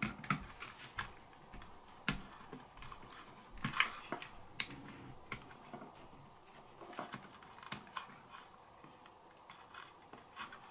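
Irregular small clicks, taps and scratches of hands picking and peeling old, soft contact-cement residue off the plastic parts of an RC car chassis.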